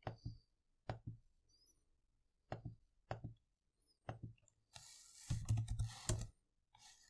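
Faint computer mouse clicks, each a quick double tick of press and release, about five times over the first four seconds. Then, about five seconds in, a short run of keyboard typing.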